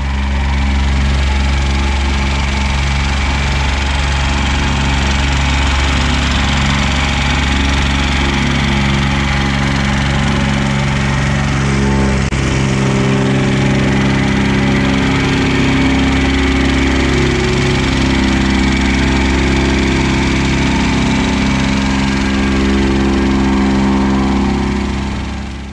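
Plate compactor running steadily, its engine and vibrating plate pounding on loose gravel, with an excavator's diesel engine running alongside.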